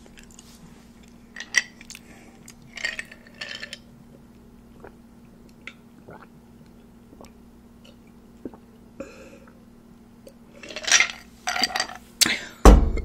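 Close-miked drinking from a small glass: sips and swallows with light clicks of the glass, scattered through a quiet stretch. A cluster of louder mouth sounds comes near the end, then one heavy thump shortly before the end.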